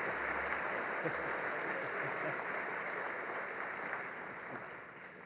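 Audience applauding, the clapping slowly dying away and fading out near the end.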